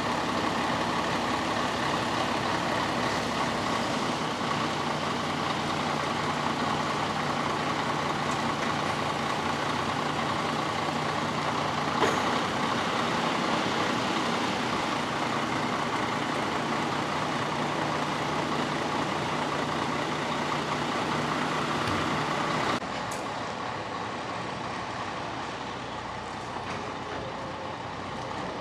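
Heavy truck's diesel engine running steadily while it manoeuvres a long trailer, with a single sharp knock about twelve seconds in. The sound drops suddenly to a quieter level a little after twenty seconds.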